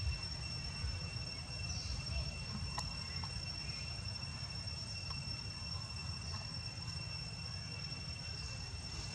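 Steady, high-pitched insect drone holding two constant tones, over a low steady rumble, with one faint click about three seconds in.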